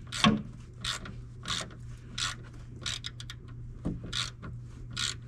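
Hand ratchet worked back and forth in steady strokes to drive a nut, a short burst of clicking on each stroke, about eight strokes evenly spaced.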